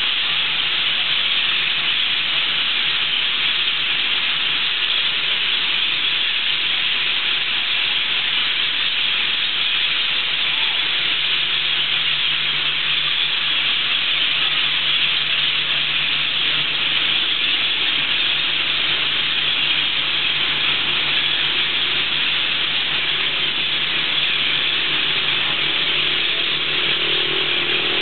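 A large flock of parrots calling all at once in the treetops, countless overlapping screeches merging into one steady, dense wash of sound, typical of the flock gathering at its evening roost. A motor's hum comes in near the end.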